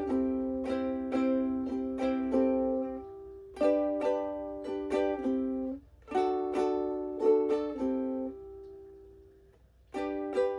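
Ukulele chord riffs: three short phrases of repeated chord strokes, each left to ring out, then a pause of about a second and a half before the next phrase starts at the end.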